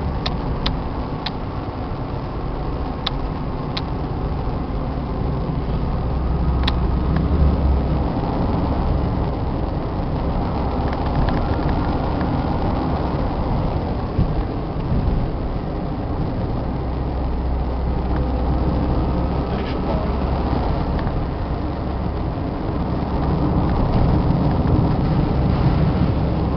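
Car engine and tyre noise heard from inside the cabin while driving over a rough street. A few sharp ticks come in the first several seconds.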